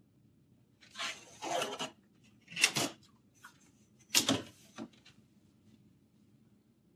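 A metal ruler being slid and repositioned across drawing paper, in three short rubbing scrapes about one, two and a half, and four seconds in.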